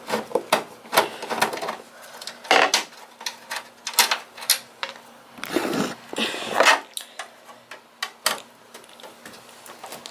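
Irregular clicks, knocks and scraping of plastic and sheet metal as a Dell Optiplex GX520 desktop's power supply is worked loose from its case.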